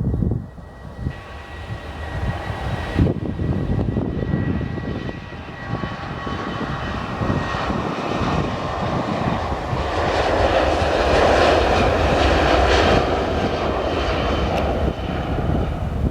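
Jet airliner's engines passing close by, a rushing noise that builds to its loudest a little after halfway and then eases off. A thin, steady whine sits above the rush in the first half.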